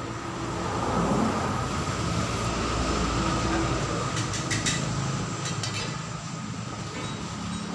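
Suzuki Katana's engine running with a steady low rumble through its newly fitted racing exhaust, growing louder in the first second. A few sharp clicks about four to five seconds in.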